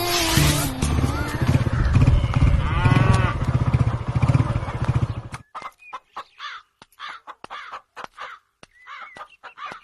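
The tail of a film song, then after about five and a half seconds a series of short, separate bird calls, typical of crows cawing.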